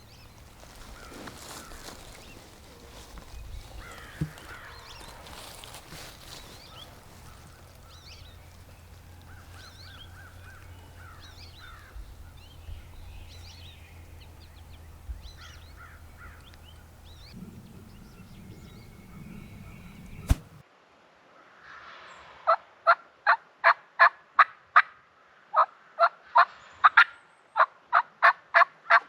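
Wild turkeys calling: after a quiet stretch with faint small-bird chirps, a long, evenly spaced series of loud turkey yelps, about three a second, starts about two-thirds of the way through.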